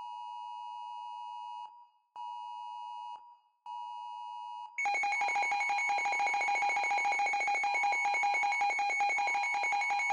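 Emergency Alert System tones: three short electronic header bursts, the first about two seconds long and the others about a second each. Then, from about five seconds in, the louder continuous, rapidly pulsing attention signal that opens a new alert.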